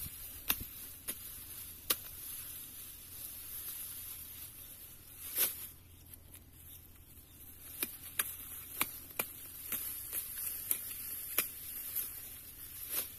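Pearl millet stalks being cut and broken by hand in a standing crop: about a dozen irregular sharp cracks with rustling of leaves, over a steady high hiss.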